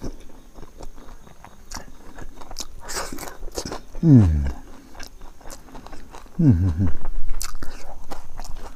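A person chewing crispy fried grasshopper pickle with rice, with many small crunches. Two short murmured vocal sounds falling in pitch come about four and six and a half seconds in.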